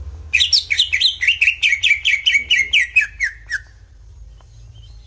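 A songbird singing a rapid run of about twenty short, sharp, falling chirps, roughly six a second, for about three seconds, then stopping.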